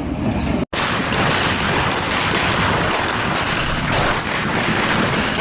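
Controlled building demolition: a dense, continuous crackle of explosive charges and collapse noise, with a brief dropout just under a second in.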